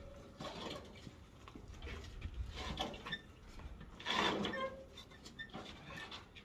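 Scattered knocks, clunks and brief squeaks of a motorcycle being manhandled on a flatbed trailer ramp, with one louder noise about four seconds in.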